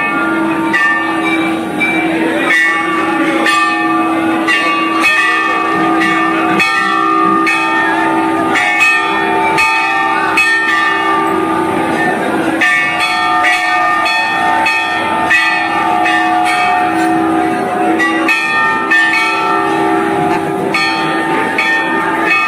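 Temple bells struck over and over in a crowded Hindu temple: many overlapping clanging strikes with steady ringing tones, and a crowd's voices underneath.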